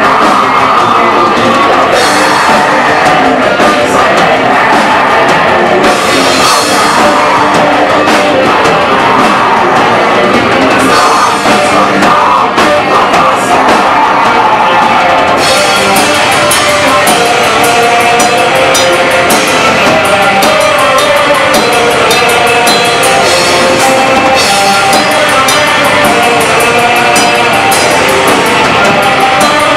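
Black metal band playing live, with distorted electric guitars and a drum kit, loud and dense throughout. About halfway through, the drums switch to fast, steady cymbal and snare strokes.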